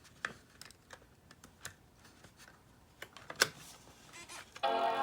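Light clicks and taps of keys on a MacBook Pro keyboard, then near the end the Mac startup chime starts suddenly, a loud sustained chord that slowly fades: the laptop powering on.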